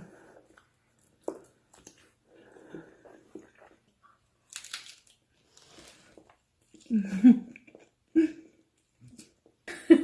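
Scattered mouth noises from someone eating: chewing and smacking sounds broken by a few short wordless vocal noises, the loudest a little past the middle.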